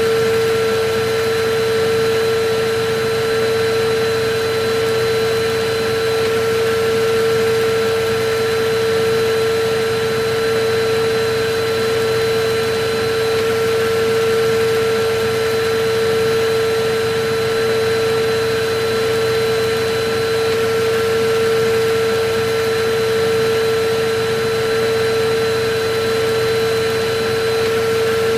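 Electric vacuum cleaner running steadily: a constant rush of air with a steady motor whine.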